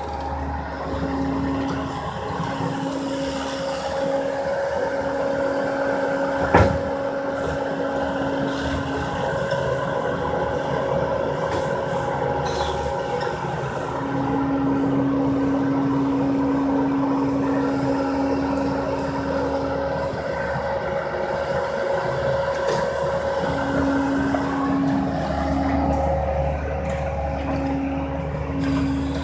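Compact track loader running steadily, its engine and hydraulics giving a constant whine, with a lower tone that comes and goes as the lift arms work. A single sharp knock comes about six and a half seconds in.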